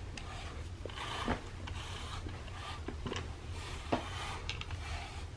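A pet grooming brush drawn through a cat's fur in repeated strokes: about six rasping swishes, with a few light clicks among them.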